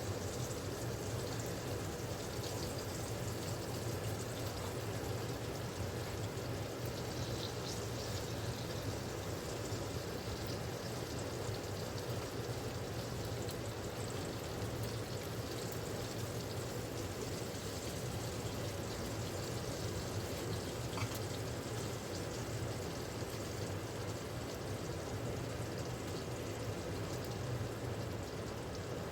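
Mountain river flowing, a steady sound of running water.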